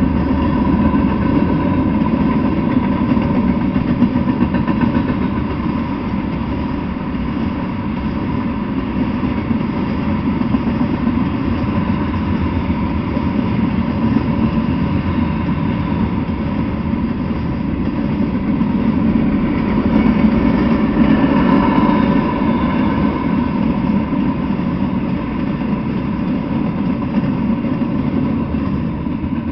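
Freight cars (tank cars, gondolas and loaded flatcars) rolling past on the rails: a steady, loud rolling clatter of steel wheels on track, dropping away near the end as the train clears.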